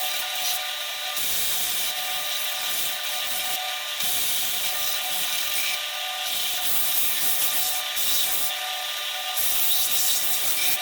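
Electric power sander running with a steady motor whine while it grinds the edges of small wooden coasters round. The grinding rises and falls every second or so as the wood is pressed to it and eased off.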